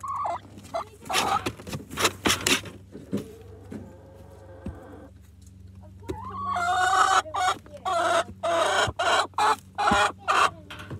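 Domestic hens clucking at close range: short sharp clucks in the first seconds, then a busy run of quick, overlapping clucks from about six seconds in.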